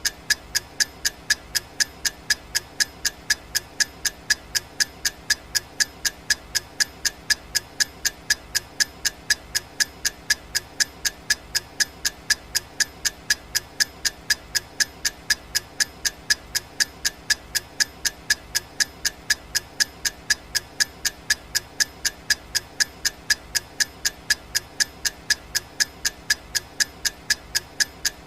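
Clock-ticking sound effect of a countdown timer: sharp, evenly spaced ticks, several a second, going on without change.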